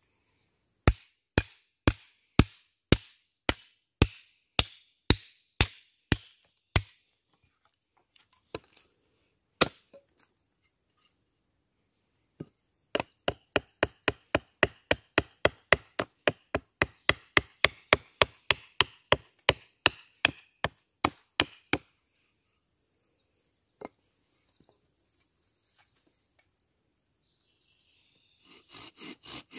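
Wood being chopped with a blade, roughing out a wooden spoon: a run of about a dozen even strokes, then, after a pause with a few stray knocks, a faster run of about three strokes a second.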